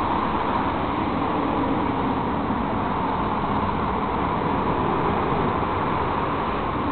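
Steady road traffic noise from cars driving past on a multi-lane city street.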